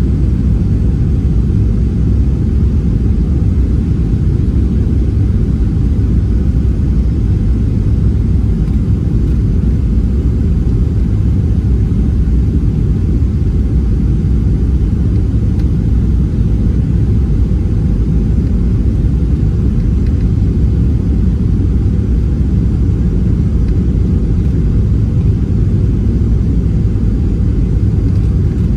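Steady low rumble inside the cabin of a Boeing 737-700 descending on approach to land: the CFM56-7B engines and the air rushing past the fuselage.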